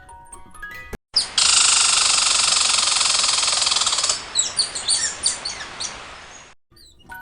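A dense, loud chorus of many birds chattering together, which breaks up about three seconds in into separate quick falling chirps and then fades away.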